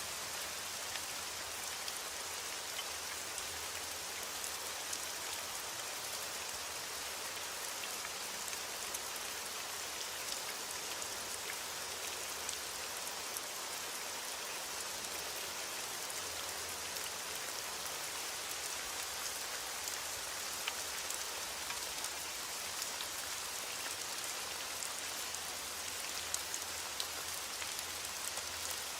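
Steady rain falling, a continuous hiss with many separate drops ticking on a surface.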